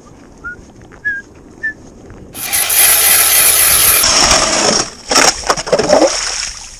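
Hand-crank ice auger grinding and scraping through clear ice, starting about two seconds in, loud and rough. Near the end it breaks into a few knocks and uneven scraping.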